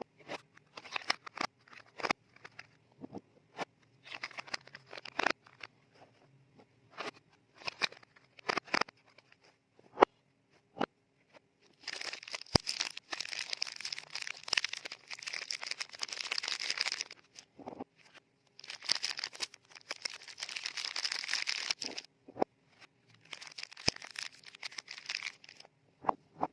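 Frosted paper soap wrappers crinkling and rustling as they are folded around soap bars by hand. The first half has scattered light taps and clicks with short crinkles, and the second half has two long stretches of continuous crinkling.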